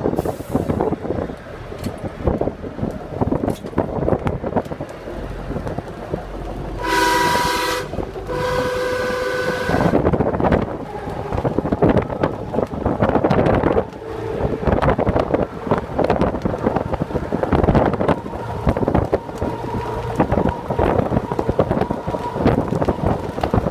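Vintage trolley car running fast on the rail line, heard through the open front window: wheels clattering on the rails and wind rushing past. About seven seconds in a horn sounds twice, a short blast followed by a longer one.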